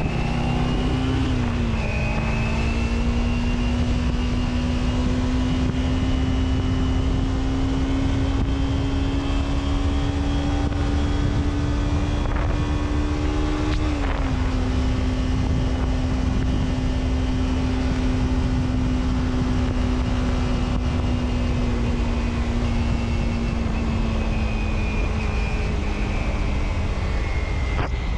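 A vehicle engine running steadily while driving, over low road rumble; its pitch slowly rises, drops suddenly about a second and a half in and again about halfway through, then slowly falls.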